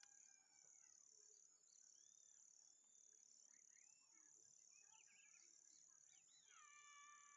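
Faint nature ambience: a steady, high, pulsing chirring of crickets or other insects, with scattered short bird chirps. Near the end comes a longer drawn-out animal call that falls in pitch and then holds.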